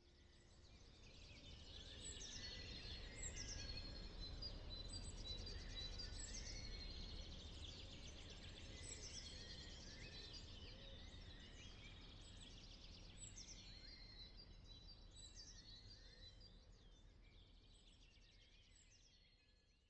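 Outdoor ambience of several small birds chirping and twittering over a low steady rumble, fading in over the first couple of seconds and fading out near the end.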